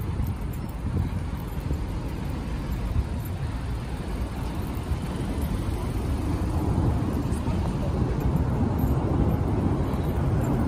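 Street traffic: cars, SUVs and a van moving slowly past in a queue, a steady low rumble that grows a little louder toward the end.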